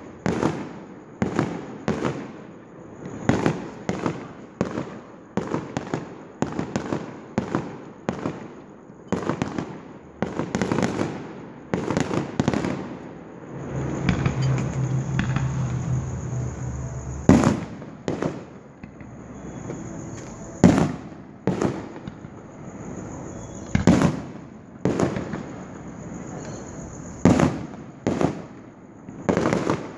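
Aerial fireworks bursting in quick succession, about two bangs a second. In the second half they thin out to louder single bangs a few seconds apart.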